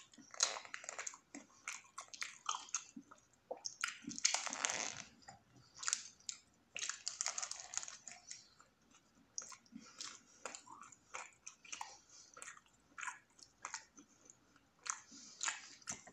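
Close-up eating sounds: biting into and chewing a spicy footlong wrap, a run of short crunches and wet mouth clicks, with a couple of longer, noisier stretches about four and seven seconds in.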